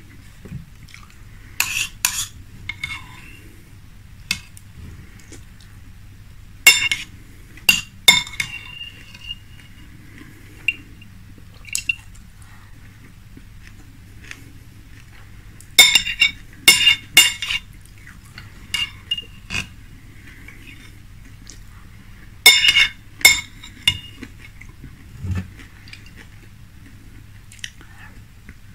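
A metal spoon clinking against a glass bowl as it scoops up milk and cereal, in clusters of two or three ringing clinks about every six to seven seconds.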